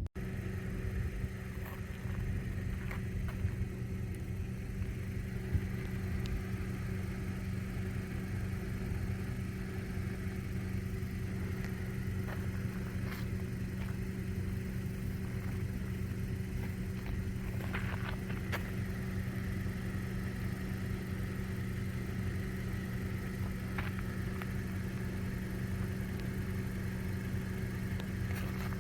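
A car engine running with a steady hum, with a few faint clicks and knocks over it.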